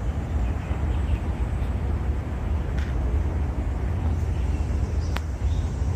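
Outdoor ambience dominated by a steady low rumble, with a few faint short high chirps and a couple of light clicks on top.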